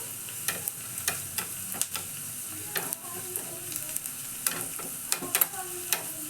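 Tempering frying in coconut oil in a small pan: a steady sizzle with frequent sharp crackling pops as mustard seeds, onions and curry leaves splutter in the hot oil while being stirred.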